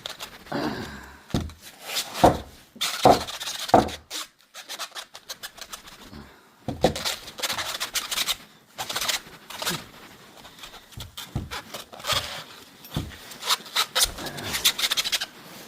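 1.5-inch wheel spacers being handled, with repeated irregular clinks, knocks and scrapes of metal parts.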